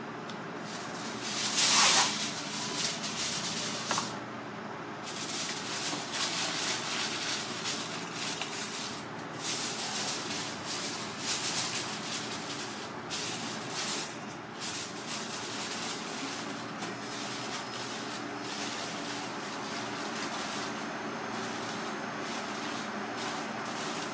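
Aluminium foil being crinkled and folded by hand: a loud rustle about two seconds in, then crackling on and off, dying away about two-thirds through. A steady low hum runs underneath.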